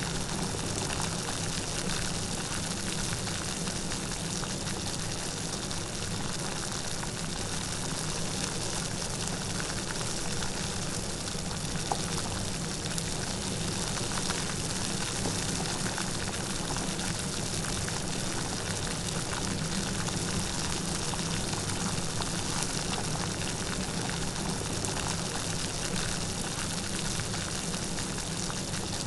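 Light rain falling steadily, a dense, even patter of drops with no thunder.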